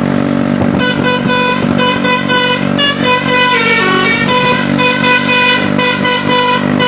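A tour bus's basuri musical 'telolet' air horn playing a quick melody of short notes, starting about a second in, over the steady hum of the bus's idling engine.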